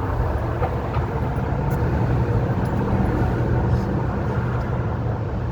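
City street traffic: a steady low rumble of passing and idling vehicles.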